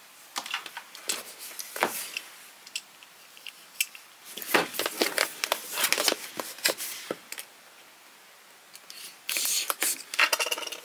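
A cardboard subscription box being opened by hand: scattered clicks and taps from handling the box and packaging, with a short burst of rustling near the end.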